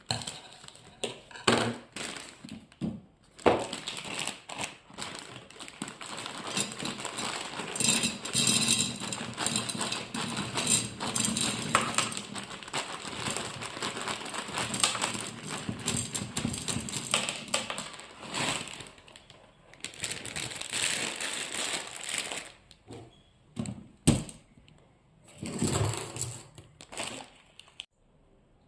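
Dry pasta and its plastic packet being handled while the pasta is decanted into a pantry container: a long run of rattling and crinkling in the middle, with scattered clicks and knocks of containers and lids, one sharp knock near the end.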